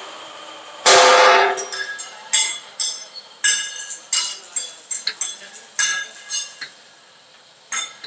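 Steel sheet being bent on a plate-rolling machine into a conical concrete-mixer drum. The sheet gives a loud ringing crash about a second in, then clanks and rings irregularly, once or twice a second, as it flexes and knocks against the rolls.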